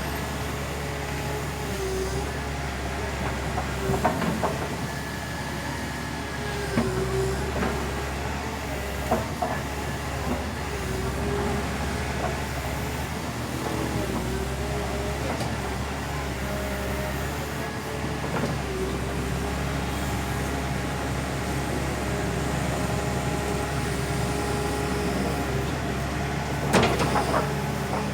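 Backhoe's diesel engine running steadily, its note dipping and recovering every few seconds as it works under load, with a few sharp knocks and cracks, the loudest near the end.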